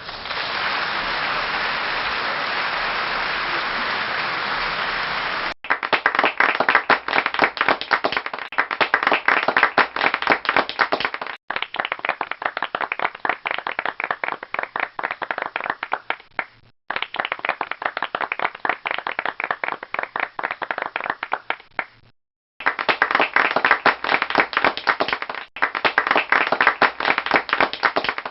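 A string of applause recordings cut end to end. For about the first five seconds it is dense, even applause. After that come several shorter bursts of clapping, in which single claps stand out. Each one starts and stops abruptly, with brief silent gaps between some of them.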